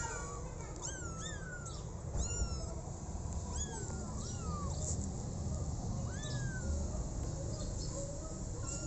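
Young kittens meowing: short, high-pitched mews, each rising then falling, one or two a second, from more than one kitten. A steady low rumble runs underneath.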